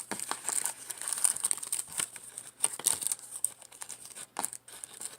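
A trading card pack's wrapper being handled, crinkling and torn open in irregular crackles.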